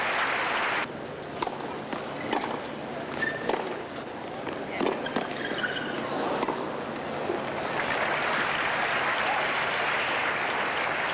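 Arena crowd applauding; the applause cuts off abruptly about a second in. Then comes a quieter stretch of crowd murmur with scattered sharp knocks, and applause swells again from about eight seconds.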